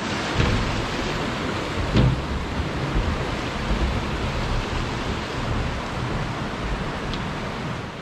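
Steady rushing of a mountain stream over rocks, with an irregular low rumble on the microphone and a couple of brief knocks.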